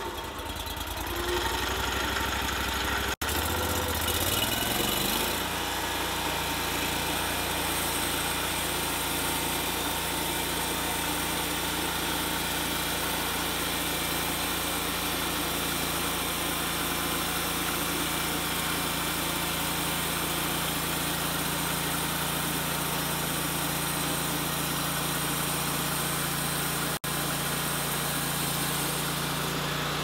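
The 35 HP engine of a Hud-Son Oscar 336 Pro bandsaw mill, just started: it runs low, revs up about four seconds in, then holds a steady high speed as the saw head is pushed through the log.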